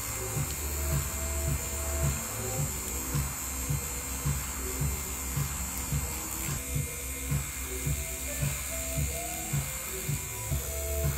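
Background music with a steady beat, about two beats a second, and short melodic notes, over a steady electric buzz.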